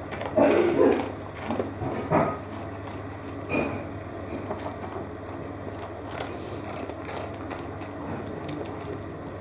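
A dog eating dry food from a bowl on a hard kitchen floor: crunching and chewing clicks, louder and more frequent in the first few seconds, then fainter, over a low steady hum.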